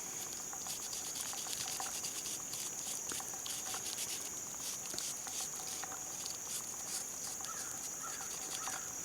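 Steady high-pitched buzz of an insect chorus, crickets or similar, with many small clicks and rustles from close by.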